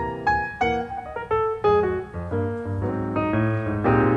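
Background piano music: single notes and chords struck at a moderate pace, each ringing and fading.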